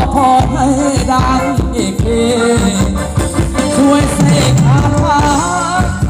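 Live band playing Thai ramwong dance music: a melody over a steady drum beat.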